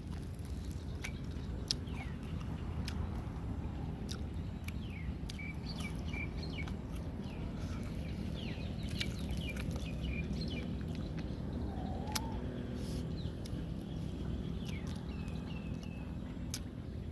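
Birds chirping in quick series of short calls over a steady low rumble, with scattered sharp clicks.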